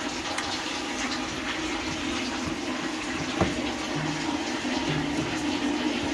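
Steady rush of running water in a twin tub washing machine, with a low hum underneath and a single sharp click about three and a half seconds in.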